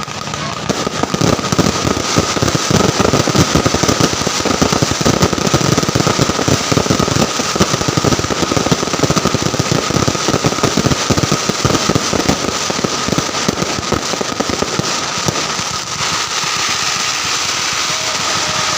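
Fireworks going off in a dense, rapid crackle of many small bangs, easing about sixteen seconds in into a steadier rushing noise, with a faint steady high hum underneath.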